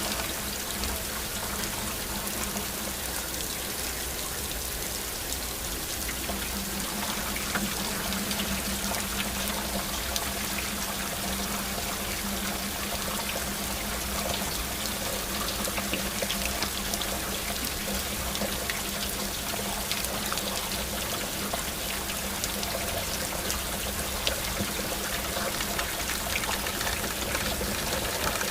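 Steady rain falling, with water pouring and trickling. A low steady hum runs beneath it, dropping out for a few seconds early on.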